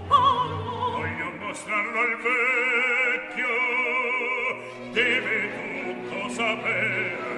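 Operatic singing on a music soundtrack: a voice holding long notes with wide vibrato, moving to a new note every second or two, over orchestral accompaniment.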